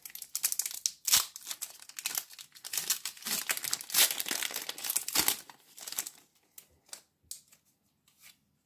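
Foil Pokémon booster pack wrapper crinkling and rustling as it is torn open by hand for about five seconds, followed by a few faint clicks.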